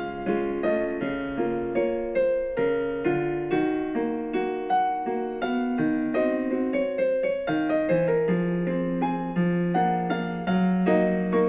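Background piano music: a steady succession of notes at an even pace.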